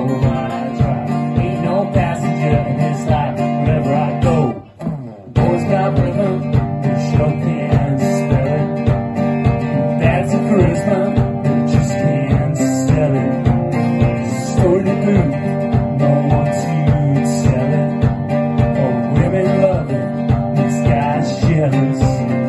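Live acoustic band playing an instrumental passage: acoustic guitars, keyboard and a steady bass drum beat. The music stops briefly about five seconds in, then comes straight back in.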